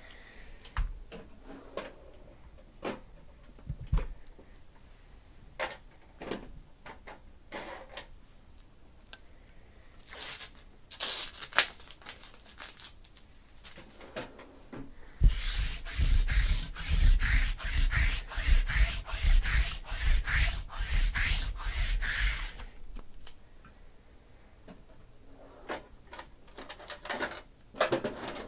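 Scattered knocks and clicks of something being handled. Partway through comes about seven seconds of quick, rhythmic rubbing or scraping strokes, roughly three or four a second, then a few more clicks near the end.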